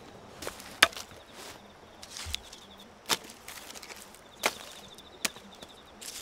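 Sharp wooden knocks, four or so spaced one to two seconds apart, the loudest about a second in: dry sticks being chopped on a tree-stump block and tossed onto a pile of kindling.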